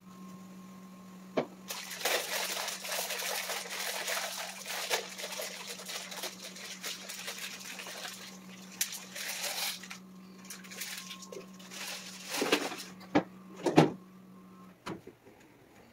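Pot of pasta water at a boil with the lid off, bubbling and hissing loudly from about two seconds in until about ten seconds, then quieter. A few sharp knocks of pot or lid come near the end, over a steady low hum that stops just before the end.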